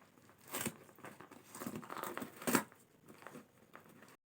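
Dog tearing and crumpling parcel packaging with its mouth, in short scattered bursts of rustling and ripping, the loudest about two and a half seconds in.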